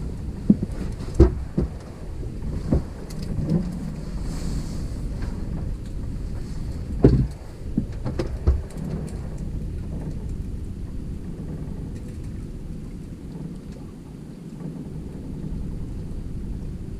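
A steady low rumble of wind and river current around an anchored fishing boat, broken by several hollow thumps of a man stepping and shifting gear on the boat's deck, the loudest about a second in and about seven seconds in.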